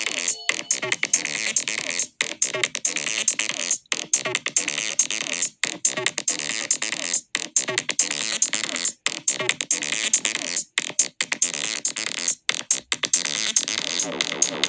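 Electronic synthesizer music: a dense, noisy synth texture chopped by brief silences that recur at a steady beat, roughly every second and a half to two seconds.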